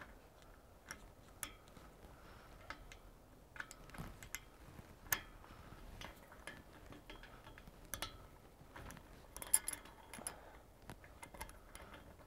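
Faint, scattered clicks and clinks of a steel shackle knocking against an eye bolt and the shade sail's corner ring as they are handled and linked together, with a quick cluster of clicks near ten seconds in.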